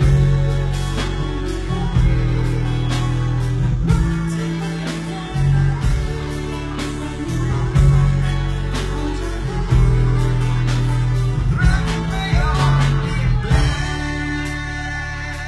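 A live pop band playing: a man sings into a microphone over guitar, keyboard and a drum kit, with strong low bass notes that change every second or two.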